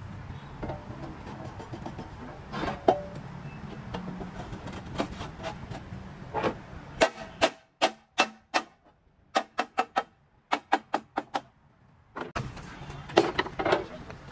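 Hammer blows on steel: a few scattered sharp knocks, then a quick run of them in the second half, a couple to several a second, over a low steady hum.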